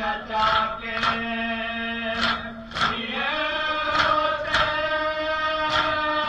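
A Muharram noha chanted in a sustained mournful melody while a crowd of men beat their chests (matam) in unison: sharp slaps that come in pairs, a pair about every second and three quarters.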